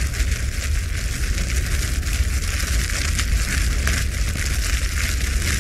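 Logo-intro sound effect: dense crackling and hiss over a steady deep rumble.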